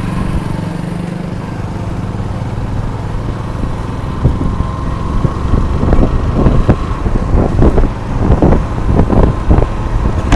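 Yamaha FZS motorcycle's single-cylinder engine running as the bike rides off, steady at first, then with irregular low rumbling surges from about four seconds in as it gathers speed.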